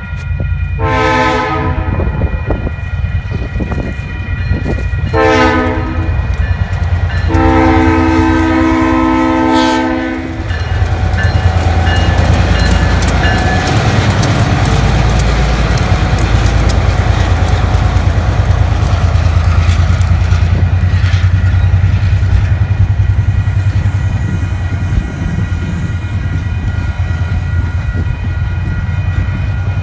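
EMD SW1500 switcher locomotive sounding its horn for a grade crossing: two shorter blasts, then a long one. The train then passes close by, with a steady diesel engine rumble and wheel and rail noise.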